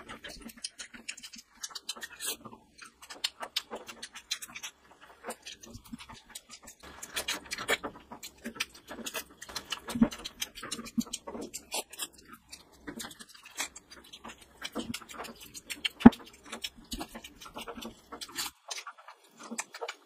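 Close-miked eating sounds: chewing, lip smacking and wet clicks of a mouth and curry-covered fingers handling spicy meat curry. A single sharp knock about three-quarters of the way through is the loudest sound.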